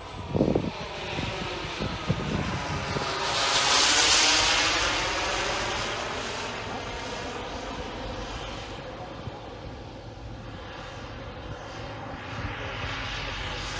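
Turbine engine of an RC model jet (Sebart Avanti S) passing overhead: a steady jet hiss that swells to its loudest about four seconds in and then eases off as it moves away. A couple of low thumps come near the start.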